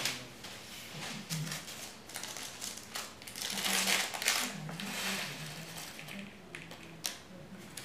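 Clear plastic packet of black enamelled blocking pins crinkling as it is handled and opened, loudest in the middle, with the metal pins tipped out onto a foam blocking mat in light clicks.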